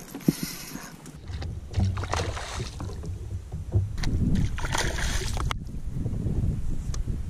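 Water sloshing and splashing around a kayak, over a low rumble of wind on the microphone; the splashing cuts off suddenly about five and a half seconds in.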